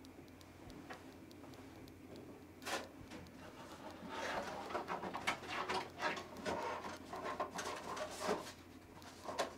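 Paper case folder being opened and its sheets handled and turned on a desk: a single tap about three seconds in, then steady paper rustling and sliding from about four seconds in.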